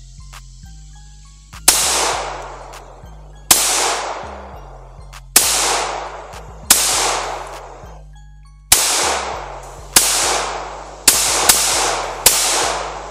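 Stoeger STR9 9mm pistol firing nine shots at an uneven pace, mostly one to two seconds apart, with two close together near the end. Each shot has a long echoing tail. Background music with a low bass line plays underneath.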